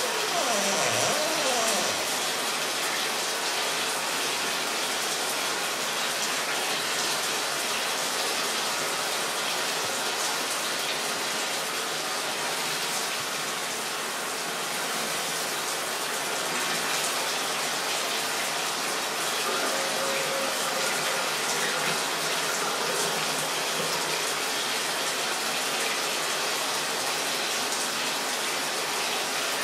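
Shower running: a steady rush of water spray. A short falling squeak sounds about a second in.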